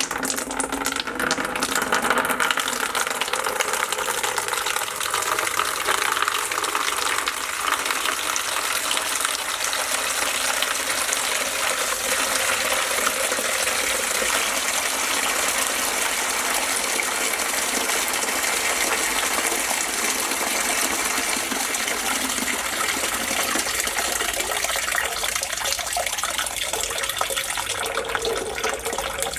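Water running steadily from a sink faucet into a basin, a continuous splashing gush.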